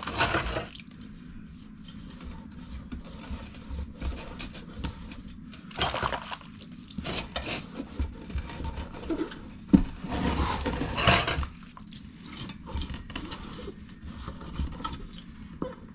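Hands wetting a dirt bike wheel rim and tire with soapy water: scattered rubbing and light clinks against the rim, with a sharp knock about ten seconds in followed by a longer scrub.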